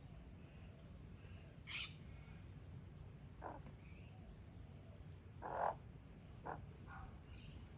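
Australian magpies giving short, scattered calls, six in all, the loudest a little past the middle, over a faint low background rumble.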